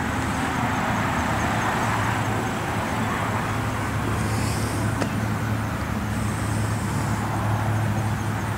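Steady outdoor background noise: a constant low hum under an even hiss, with no distinct events.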